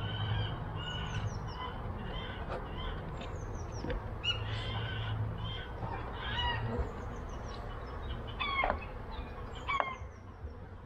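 Outdoor birdsong: a small songbird repeats quick runs of falling high notes, and two louder, lower calls with a rich tone come about two-thirds of the way through, over a steady low hum.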